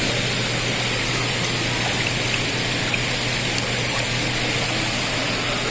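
Steady, rain-like hiss from the rainforest exhibit's fog-misting system, over a constant low hum.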